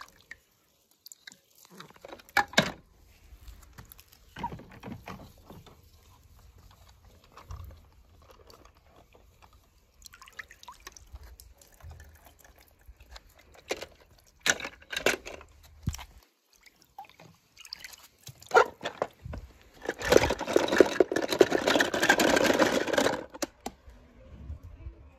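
Water splashing and dripping as wet plastic toy cars are handled in a tub of water, with scattered clicks and knocks of the toys. About twenty seconds in comes a longer stretch of louder splashing that lasts a few seconds.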